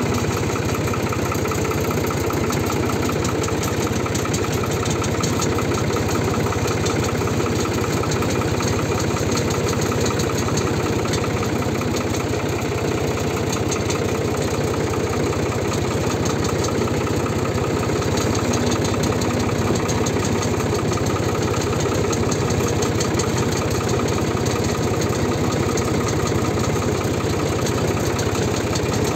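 Tractor engine running at a steady speed under way, heard from the driver's seat, with a fast, even firing beat.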